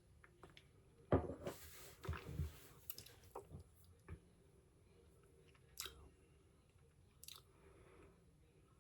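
A sip of bourbon taken with an airy slurp about a second in, then quiet mouth sounds: wet smacks and clicks of the lips and tongue as the whiskey is worked around the palate.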